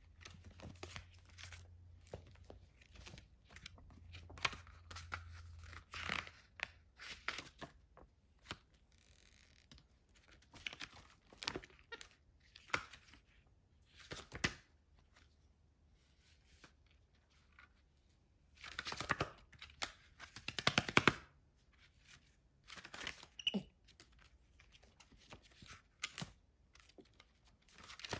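Paper pages of a hardcover book rustling, flipping and crinkling as a capuchin monkey paws through them, in irregular scrapes and crackles with two louder stretches about two-thirds of the way in.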